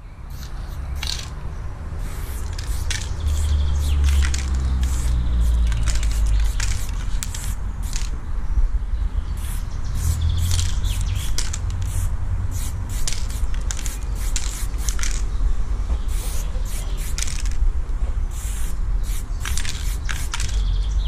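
Aerosol spray-paint can hissing in many short, separate bursts as paint goes onto a wall, over a low steady rumble.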